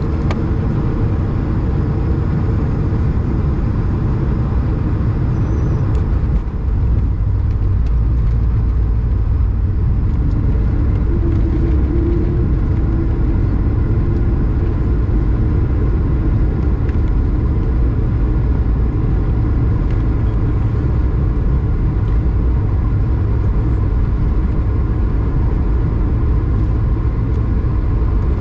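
Airbus A220 cabin noise on landing: a steady rumble with faint engine tones from its Pratt & Whitney geared turbofans. About six seconds in a brief jolt marks touchdown, and a heavier low rumble of wheels on the wet runway runs on through the rollout.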